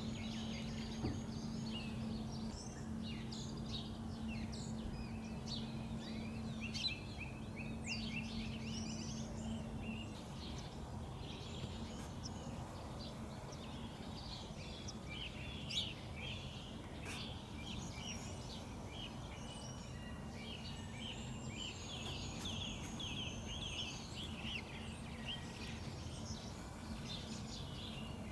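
Natural birdsong: several small birds chirping and twittering over each other, with a high thin whistled note held now and then, over a steady low background rumble. A low hum stops about ten seconds in.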